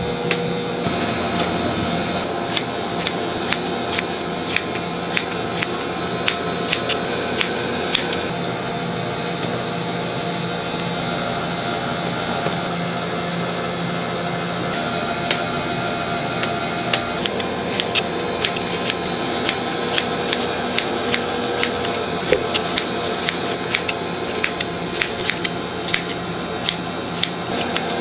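Steady whirring hum of bakery kitchen machinery with a low drone, overlaid by runs of light clicks and taps.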